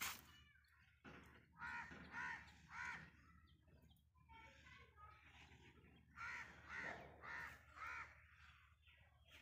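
A crow cawing: three caws, then after a pause four more, with a sharp click at the very start.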